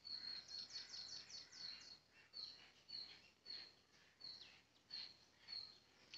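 Faint bird chirping: a short, high note repeated steadily about every half second, with a quick run of rapid notes in the first two seconds.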